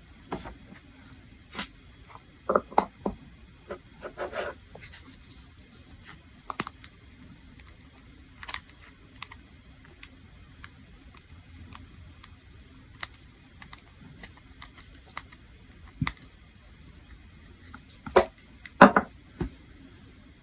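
Scattered light clicks, taps and small clatters of hard little objects being handled on a tabletop, such as nail tools and polish bottles, with a few louder knocks in quick clusters about two and a half seconds in and again near the end.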